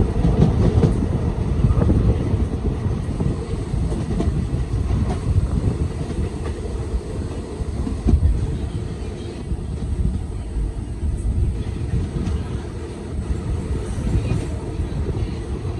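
Express passenger train running at speed, heard from an open coach door: a steady low rumble of wheels on rails with a few sharp clicks from the track.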